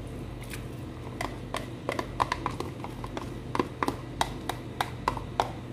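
A plastic spatula knocking and scraping against a plastic food container as sliced mushrooms and diced ham are pushed out of it into a pan of sauce: a string of irregular sharp clicks, with a steady low hum underneath.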